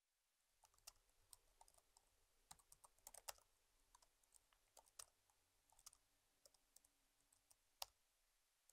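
Faint, irregular typing on a laptop keyboard, quick key clicks in uneven runs.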